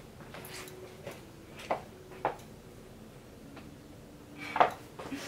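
Camera handling noise with small knocks and clinks as the camera is set down among objects on a cluttered dresser. A louder knock comes near the end.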